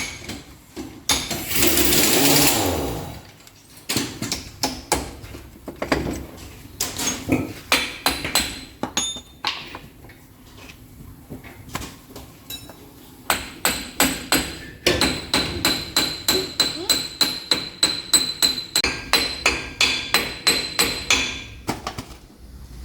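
Hammer blows on metal during differential gear-set repair, in irregular strikes and then a quick run of about three blows a second with a metallic ring. A loud rushing noise lasts about two seconds near the start.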